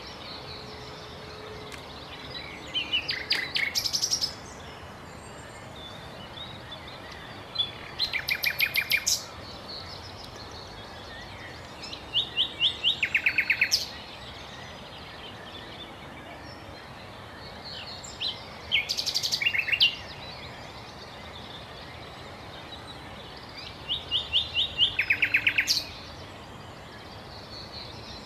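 A songbird singing five short phrases of fast repeated high notes, each under two seconds, about five or six seconds apart, over a steady outdoor background hiss.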